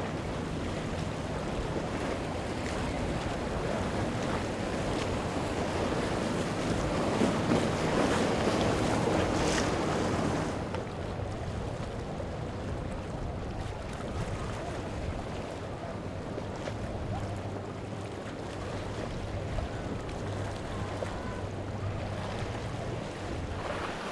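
Motor yachts under way: a low steady engine hum under the rush of bow wash and surf, with wind buffeting the microphone. The rush swells to its loudest about a third of the way in, then drops off suddenly.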